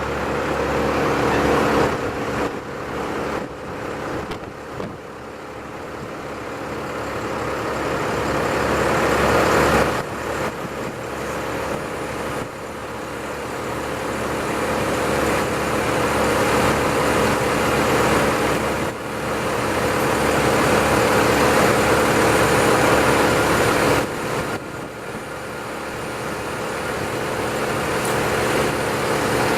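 A large engine runs continuously under load. Its noise swells over several seconds and then drops off suddenly, several times over.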